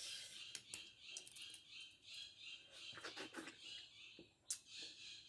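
Faint repeating high chirps from small animals, about two a second, with a few sharp clicks of quail eggshell being cracked and peeled by hand. The loudest click comes about four and a half seconds in.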